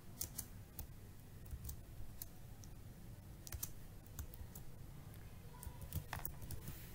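Typing on a computer keyboard: irregular key clicks in short runs of a few strokes, with brief pauses between them.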